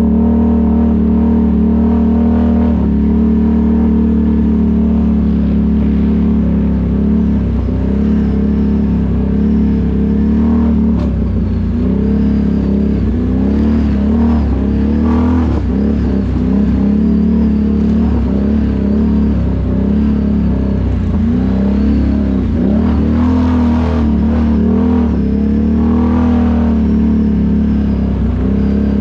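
ATV engine running under load, its revs dipping and rising again and again as the throttle is worked.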